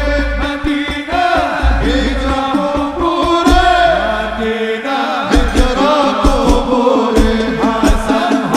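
Male voices singing a Javanese sholawat together over a steady beat of hadrah frame drums.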